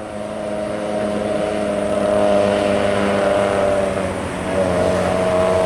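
A passing road vehicle's engine running close by with a steady droning note, growing louder over the first couple of seconds, dipping briefly about four seconds in and then building again.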